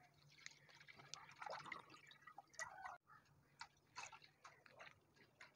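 Faint splashing of milk poured in a stream from a plastic milk packet into a non-stick kadai, with scattered small drips and ticks.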